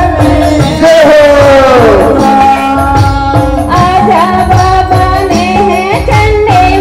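Chhattisgarhi devotional folk song (jas geet) performed live through loudspeakers: a singer's voice over a steady drum beat, with one long sung line sliding down in pitch about a second or two in.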